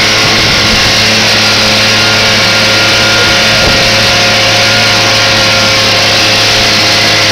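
Small tiller-steered outboard motor running loud and steady at a constant speed, pushing the boat along, heard from on board close to the engine.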